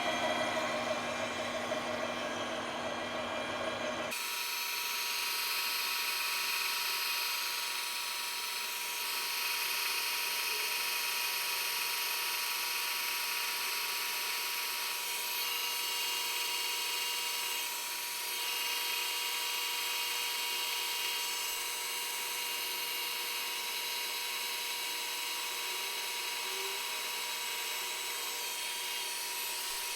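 Manual lathe running with a large steel plate spinning in the chuck while its face is being worked, a steady mechanical whir and hiss. The sound changes abruptly about four seconds in and then holds steady.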